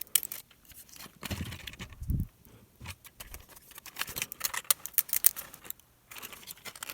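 Irregular small plastic clicks, snaps and crackles as a 3D-printed raft is picked and peeled off the printed part, with a few soft handling knocks about a second in.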